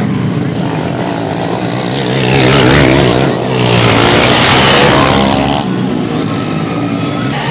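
Racing underbone motorcycles running hard past the track edge, the engine pitch rising and falling with throttle and gear changes. The bikes are loudest from about two seconds in until shortly before six seconds.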